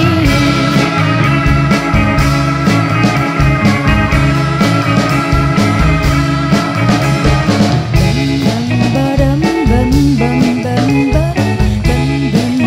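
Live psychedelic rock band playing an instrumental passage: electric guitar over bass and drums, with sustained held notes in the first half and a repeating bending riff from about eight seconds in.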